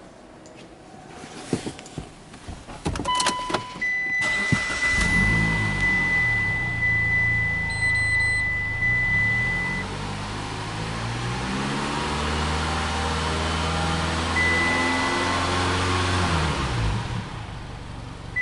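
Clicks and short electronic chimes, then the Mitsubishi Delica D:5's engine starts about four seconds in and runs, under a steady high beep tone for several seconds. The engine speed climbs slowly and drops back near the end.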